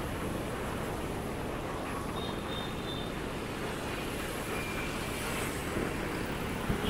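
Steady road traffic noise, a continuous rumble of passing vehicles on a busy city street.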